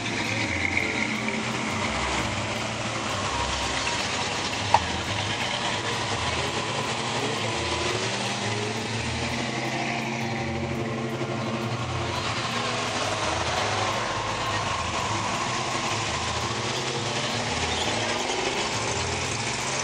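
Classic cars and street rods driving slowly past one after another, engines running. A single sharp click about five seconds in.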